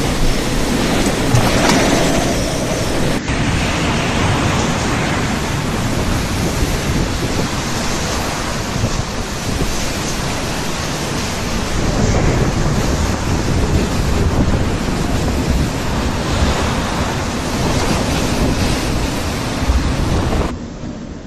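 Hurricane-force wind and driving rain: a dense rushing noise that swells and eases with the gusts, with wind buffeting the microphone. It drops away near the end.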